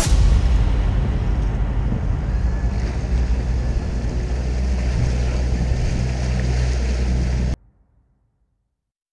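Suzuki outboard motor running steadily as the small boat moves, with wind on the microphone and water rushing past the hull. It cuts off suddenly to silence about seven and a half seconds in.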